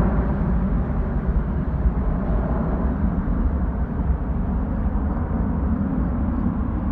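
Jet engine noise from a twin-engine widebody airliner climbing away just after takeoff. The noise is loud, steady and mostly low, with a hiss above it that thins slightly as the plane moves off.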